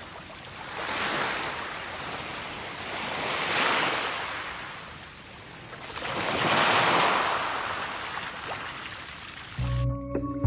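Sea waves washing in, the rush swelling and fading three times, once every three seconds or so. Music with a heavy bass beat comes in near the end.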